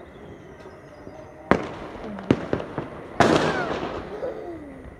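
Fireworks going off: a sharp bang about a second and a half in, a few more quick bangs, then a bigger burst a little past three seconds whose crackle dies away over about a second.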